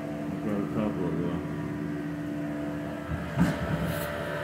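Steady mechanical hum of several pitches held level throughout, with a single knock about three and a half seconds in.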